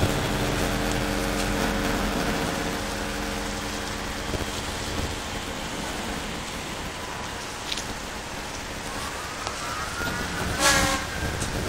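Semi truck's diesel engine idling: a steady hum that fades over the first few seconds, over a steady rushing noise. A short, loud hiss comes about ten and a half seconds in.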